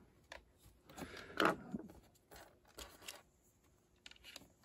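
Faint handling noises: small clicks and rustles of LEGO pieces and thin LED wire being tucked into place, with one louder click about a second and a half in.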